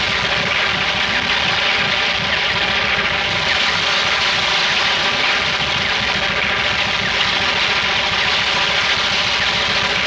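A loud, steady, engine-like drone: a dense hiss over a hum of several held tones, unchanging throughout.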